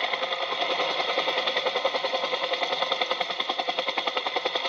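A small motor running with a steady rapid rattle, about ten beats a second.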